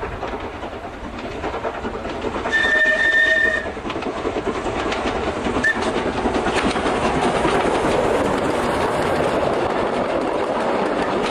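Steam locomotive whistle sounding one blast of about a second, then a short toot. The steam-hauled train of coaches then passes close, its rumble growing louder, with wheels clicking over the rail joints.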